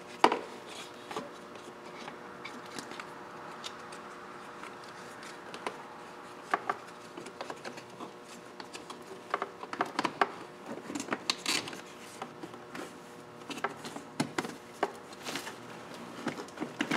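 Plastic clicks, knocks and rubbing from the cabin filter housing cover being worked back into place under the dashboard, its tabs pushed into their slots. The clicks come scattered and irregular, thicker in the middle and toward the end, over a faint steady hum.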